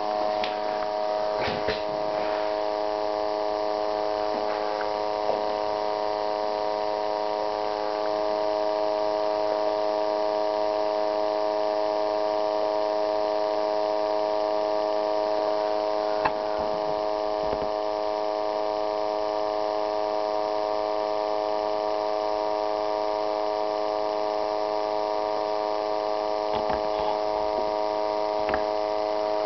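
Small electric pump motor running steadily under a PWM speed controller, a constant electric hum as it pumps water through the electrolysis cell. A few faint clicks come about a second in, around the middle, and near the end.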